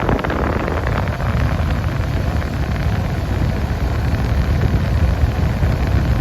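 Air conditioning blower running steadily inside the cabin of a 1992 Nissan 300ZX Twin Turbo, its air hiss over the low drone of the cold twin-turbo V6 idling. A few faint clicks in the first second.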